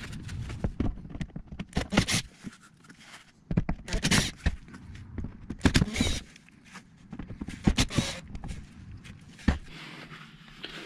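Scattered knocks, clicks and scrapes of hands and tools working against a car's plastic under tray, with no power tool running.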